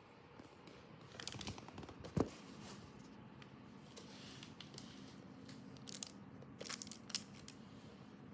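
Faint handling of an LP album's packaging: rustling and crinkling with scattered clicks, and one sharp knock about two seconds in.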